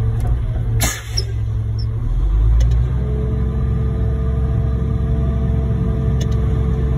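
Concrete mixer truck's diesel engine running; about two seconds in it pulls harder and settles into a steady, louder drone. A short hiss sounds about a second in.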